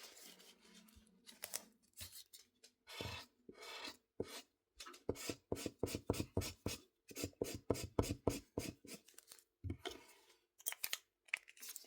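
Scissors cutting paper in runs of short, quick snips, with a few pauses between runs.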